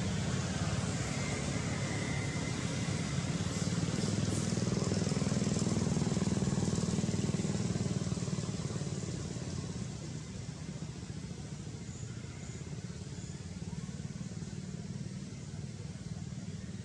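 A motor engine running with a steady low rumble, louder for the first eight seconds and then fading somewhat.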